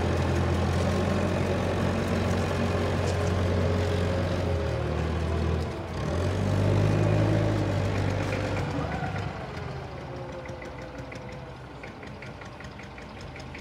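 Fordson Dexta's three-cylinder Perkins diesel engine running on its first start after a revival, as the tractor pulls away. The note dips briefly about six seconds in, then fades from about nine seconds in as the tractor drives off.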